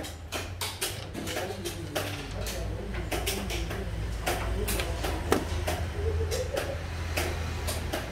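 Sharp clicks and knocks of wooden xiangqi pieces being moved and set down on a wooden board, with a chess clock button tapped, over a low hum and faint background voices.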